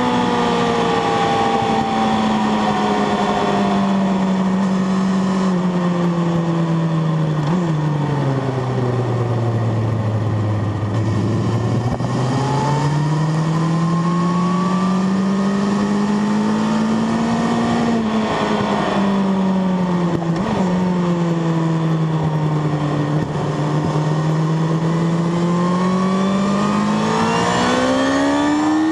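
Sport motorcycle engine heard from on board at track speed. The revs fall to a low point about ten seconds in, climb until about eighteen seconds, fall again, then climb near the end, with a rush of wind over the microphone throughout.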